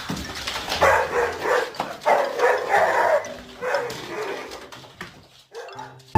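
A dog vocalising in a run of short calls that bend up and down in pitch, grumbling and whining rather than barking, and fading out near the end.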